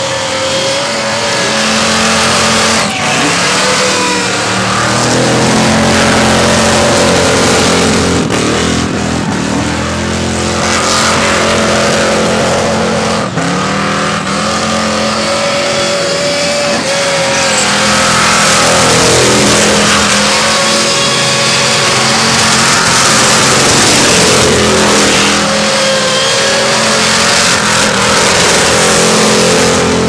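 Supercharged engine of a burnout panel van held at high revs, its pitch rising and falling again and again, over the continuous noise and squeal of the rear tyres spinning in place.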